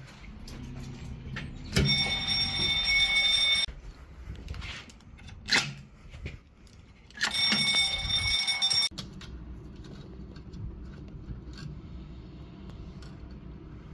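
Fire alarm bell ringing in two bursts of about two seconds each, starting and cutting off sharply, as the alarm system is set off during testing. There is a short, sharp sound between the bursts.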